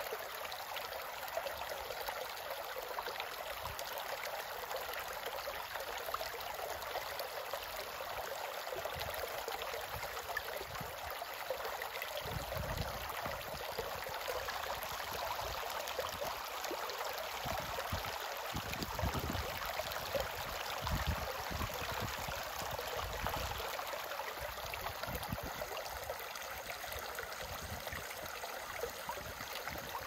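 Shallow stream babbling steadily over stones and small riffles.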